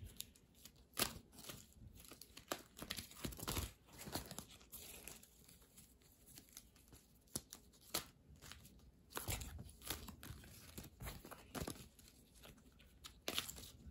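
A deck of divination cards being shuffled by hand: irregular soft rustles and taps as the cards slide against each other.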